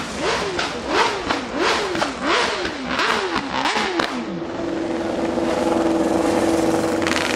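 A race superbike's engine being revved repeatedly, its pitch rising and falling about one and a half times a second, with a sharp pop at the top of most revs. After about four seconds the revs drop away and a steady engine note holds.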